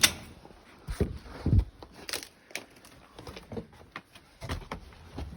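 Irregular footsteps and knocks on old wooden floorboards or stairs, with debris crunching underfoot, as someone walks down through a derelict building.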